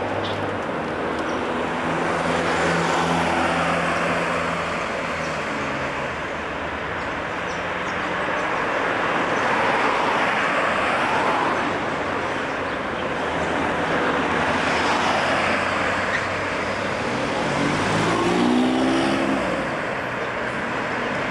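Road traffic on a city street: cars passing one after another, the tyre and engine noise swelling and fading with each. A vehicle's engine runs at a steady note early on, and near the end another engine rises in pitch as it accelerates.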